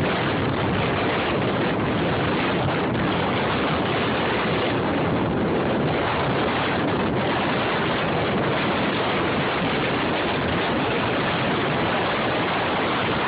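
Steady rushing noise of wind buffeting the microphone, mixed with the road noise of a moving car.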